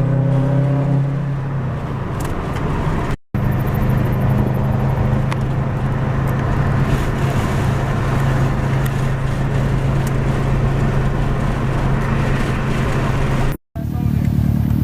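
Car engine running at a steady speed while driving, with even road and wind noise; the sound drops out briefly twice at edit cuts.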